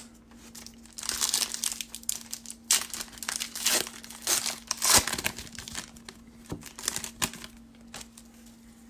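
Foil wrapper of a 2019 Panini Certified football card pack crinkling and tearing as hands pull it open. It starts about a second in and dies away about a second before the end.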